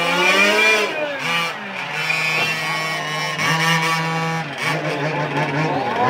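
Small two-stroke petrol engines of 1:5-scale Losi RC race cars, several at once, revving up and down as the cars lap the track. Their pitches rise and fall and overlap.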